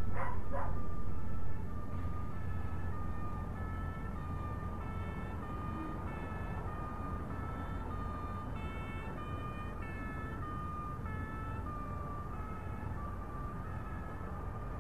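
A distant two-tone siren, alternating steadily between a higher and a lower pitch. Under it is a steady low hum that drops in level about a second and a half in.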